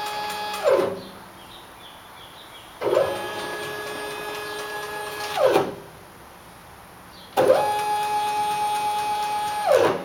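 Stepper motor on the CNC-converted Rong Fu RF-45 mill jogging the head at fast jog rate: a pitched motor whine. Three moves are heard: one ending about a second in, then two more of about two and a half seconds each. Each rises in pitch as the motor speeds up, holds steady, and falls as it slows to a stop.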